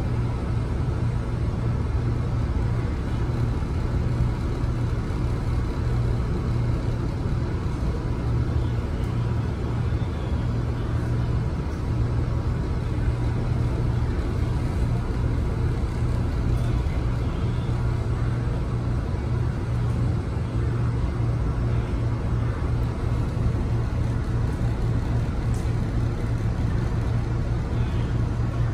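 Metro-North M3A electric railcar running along the track, heard from inside the passenger car: a steady, even low rumble.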